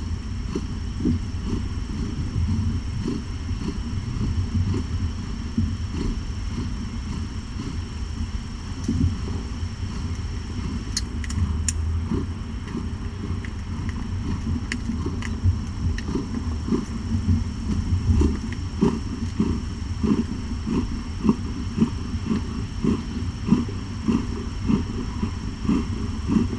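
Nursing mother cat purring, a steady low rumble that pulses unevenly.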